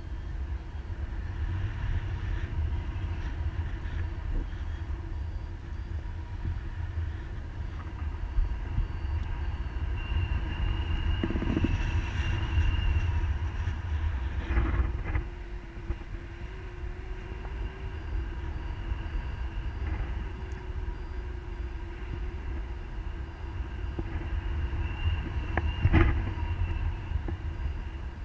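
Wind rushing over an action camera's microphone in paraglider flight, a steady low rumble. A few sharp knocks fall in the middle and one, the loudest, near the end.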